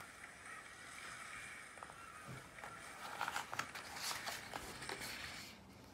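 A page of a picture book being turned by hand: faint paper rustling with light handling clicks, starting about two seconds in and fading out shortly before the end.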